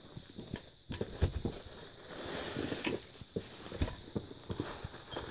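Clear plastic bag crinkling and rustling as it is worked off a subwoofer pole, with scattered crackles and a few light knocks.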